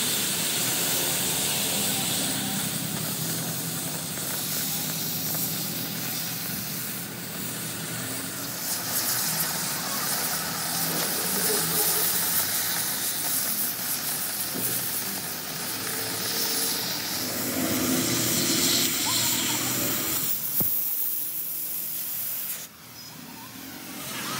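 Oxy-fuel cutting torch hissing steadily as its jet burns through the thick steel of a crankshaft, briefly quieter near the end.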